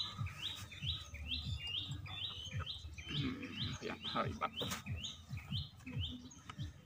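A bird repeating one short, high chirp over and over, evenly about two and a half times a second, with soft knocks of a stone mortar and pestle underneath.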